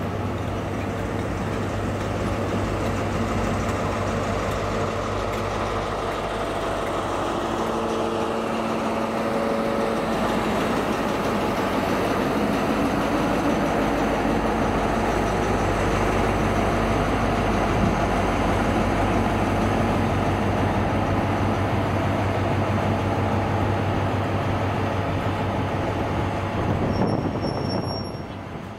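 Diesel train noise as a GWR InterCity 125 (HST) pulls past and away. Its coaches rumble by, then the rear power car's diesel engine passes and grows loudest about halfway through before fading. A steady low engine hum sits underneath throughout, with a diesel locomotive standing at the next platform.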